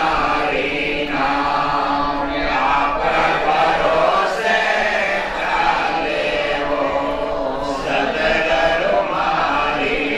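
A man chanting into a microphone in long, held sung phrases, with other voices chanting along with him.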